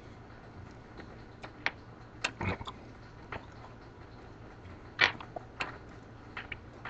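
Closed-mouth chewing of a mouthful of whole lemon with its peel: scattered wet clicks and smacks, about half a dozen, the loudest about two and a half seconds in and again about five seconds in.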